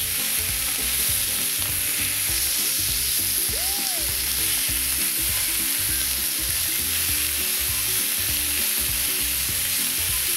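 Pieces of hanwoo beef top blade sizzling on a hot cast-iron griddle pan, a steady, even hiss of frying meat and fat.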